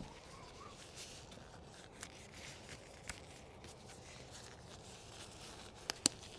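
Faint, irregular crackles and ticks over a low, steady hiss inside an offset smoker where a bone-in beef shank is cooking on the grate. Two sharper clicks come close together near the end.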